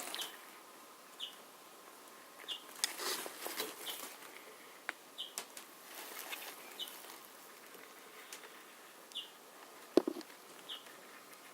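Cloth wiping and handling noises on a sewing machine head during an oil clean: intermittent soft scuffs and small clicks, with one sharp knock near the end.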